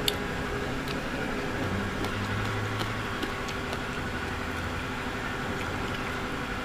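A steady background hum with a few faint short clicks.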